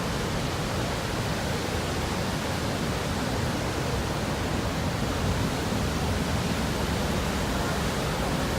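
The Rhine Falls, a broad river waterfall, rushing: a steady, deep, unbroken wash of falling water.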